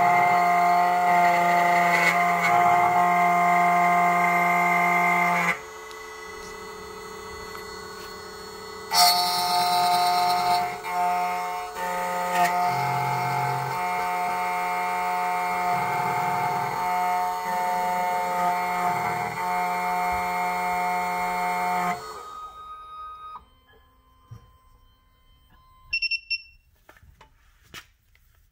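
SEC-E9 key cutting machine's spindle motor running with a steady multi-tone whine as its cutter mills the blade of an Acura MDX key. The whine drops quieter for about three seconds, comes back, then winds down about 22 seconds in. A couple of short high beeps follow a few seconds later.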